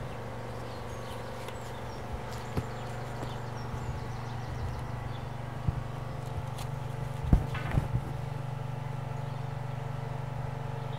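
A few irregular footsteps or knocks on the ground over a steady low hum.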